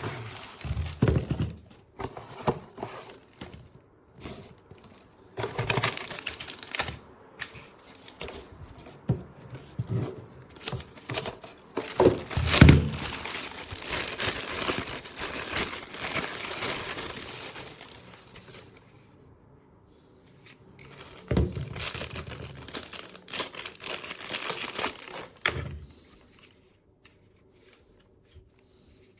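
Irregular rustling and crinkling handling noise with scattered knocks and clicks, pausing for a couple of seconds midway and dying away near the end.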